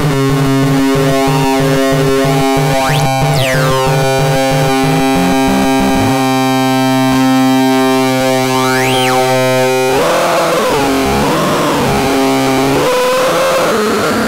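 Electronic synthesizer-type noise device sounding a buzzy held note. For about the first six seconds it is rapidly chopped, then it holds steady. Two quick swoops rise and fall, and near the end the pitch wobbles up and down.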